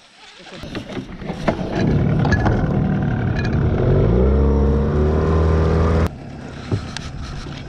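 Small boat outboard motor powering up, its pitch rising and then holding steady at high throttle, before dropping abruptly about six seconds in to a quieter, lower running.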